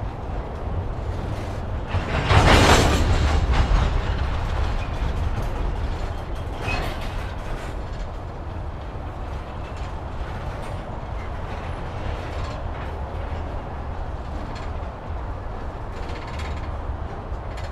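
Empty coal hopper cars rolling slowly along the track with a steady low rumble and wheel clatter. About two seconds in there is a louder burst of clattering that lasts about two seconds, and a short high squeal comes a few seconds later.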